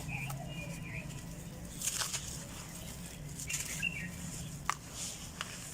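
Clumps of red dirt crumbling in scattered crackles and clicks over a low steady hum, with short bird chirps twice in the background.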